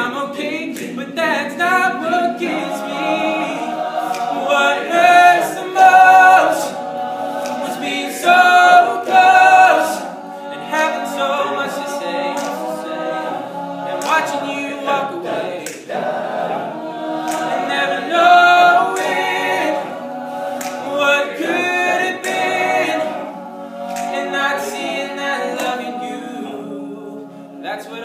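Male a cappella group singing a slow song: a solo voice carries the melody over the group's sung backing chords, with no instruments.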